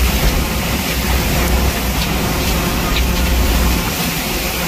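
Hurricane-force wind buffeting the microphone in an uneven low rumble, over a steady hiss of wind-driven rain and storm surf.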